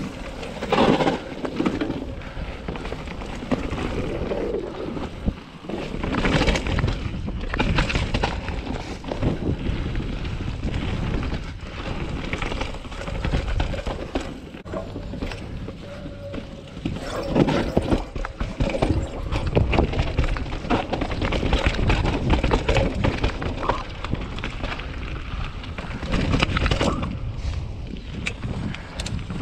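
2020 Norco Sight full-suspension mountain bike riding fast down a dirt trail: tyres rolling over dirt and roots, with the bike's chain and frame rattling and clattering at every bump. Wind noise on the microphone runs underneath.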